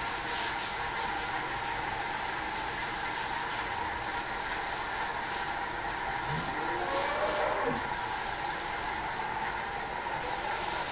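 Steady hiss and hum of background noise. About six seconds in comes a single cow moo that rises and then falls in pitch, lasting a second or two.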